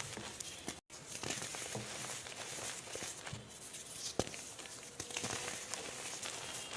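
Reformed gym chalk being crushed by hand: dry, crunchy crumbling with scattered sharp cracks, one louder crack about four seconds in, and a brief dropout to silence just under a second in.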